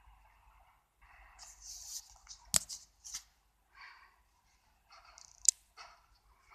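Stiff metal parts of an old Meddings floor-standing drill press being worked by hand: scraping and rubbing, with two sharp metallic clicks, the first about two and a half seconds in and the second about five and a half seconds in. The mechanism is jammy for want of lubrication and grease.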